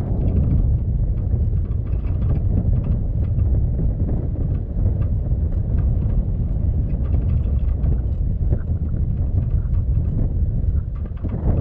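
Steady low rumble of a vehicle driving along a dirt road, mixed with wind buffeting the microphone.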